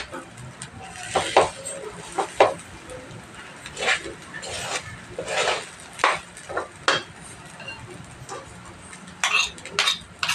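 Metal spatula scraping and knocking against a metal frying pan as cooked rice is stir-fried, in irregular strokes with a quieter pause and a quick run of strokes near the end.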